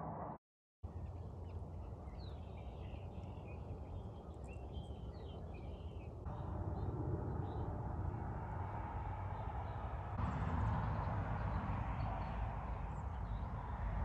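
Outdoor background noise, a steady low rumble, with small birds chirping a few seconds in. The sound drops out briefly just after the start, and the background jumps louder twice at abrupt changes.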